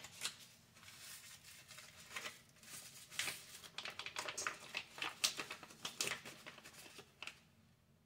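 A ranch dip mix packet crinkling as it is shaken out over a bowl, a string of quick, irregular crackles that stops shortly before the end.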